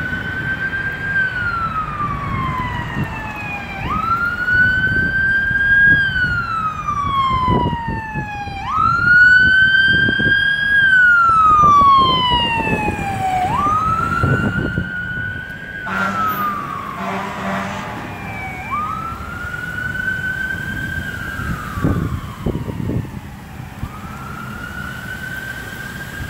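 Fire engine siren on a wail. Its pitch rises quickly, holds high, then falls slowly, about every four to five seconds. About two-thirds of the way through there is a quick run of short horn blasts, and the siren fades near the end as the truck moves away.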